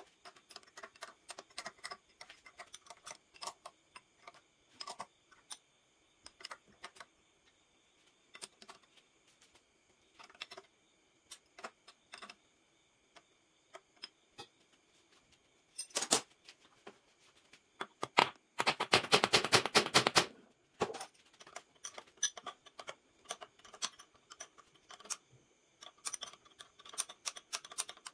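Metal hand tools clicking and tapping at irregular intervals, with a fast run of clicks lasting about two seconds a little past the middle.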